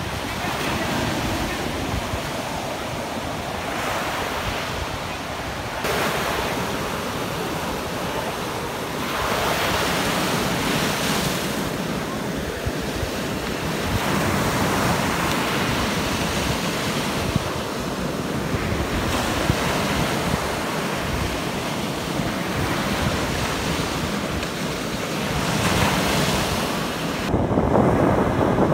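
Sea waves breaking and washing up over a paved stone sea wall, in repeated surges every few seconds that grow louder near the end. Wind buffets the microphone with a low rumble.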